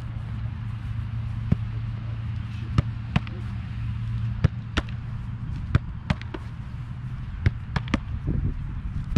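A soccer ball being struck again and again in a goalkeeper drill: about a dozen sharp smacks at irregular intervals, over a steady low hum.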